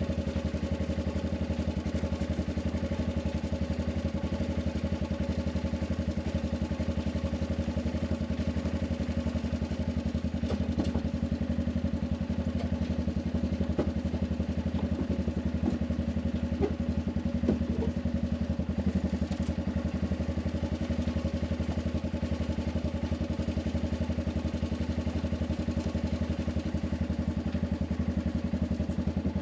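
Arctic Cat 500 ATV engine idling steadily, running again now that the dead battery has been dealt with.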